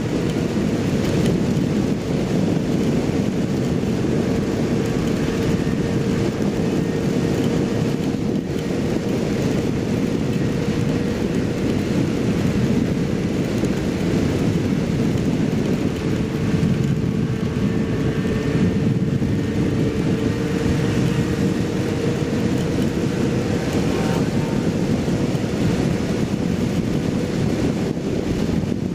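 Kawasaki Z750 inline-four motorcycle cruising at steady highway speed, its engine holding an even pitch under a constant rush of riding noise.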